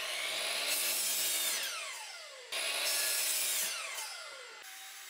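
Delta miter saw cutting wood twice, about two and a half seconds apart. Each cut is a sudden burst of blade-through-wood noise, followed by the motor's whine falling in pitch as the blade coasts down.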